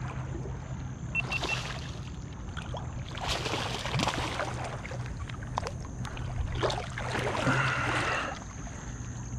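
A hooked snook thrashing and splashing at the surface close to the kayak, in several bursts, the loudest near the end.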